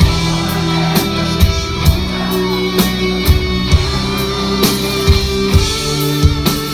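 Rock band playing an instrumental passage between sung lines: sustained electric guitar over bass, with steady drum strokes and no vocals.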